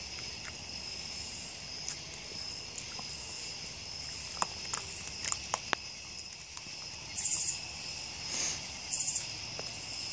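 Crickets and other night insects chirping steadily. A few sharp small clicks sound around the middle, and two brief, louder bursts of high hiss come later.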